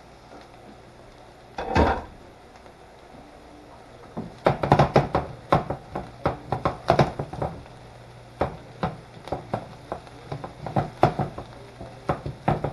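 A silicone spatula stirring onions and mushrooms in a nonstick skillet, making irregular light knocks and scrapes that come thick and fast from about four seconds in. The pan jiggles and knocks on the glass cooktop as it is stirred.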